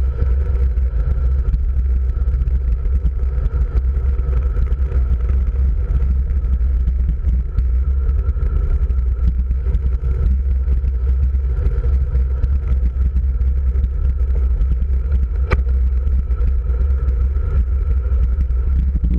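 Wind rushing over a handlebar-mounted camera's microphone, with the steady rumble of a road bike's tyres on rough asphalt. A single sharp click comes about three-quarters of the way through.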